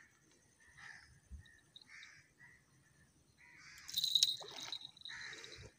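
Crows cawing a few times. About three and a half seconds in, a louder stretch of noise lasting about two seconds: splashing as a hooked thail is netted in the shallows.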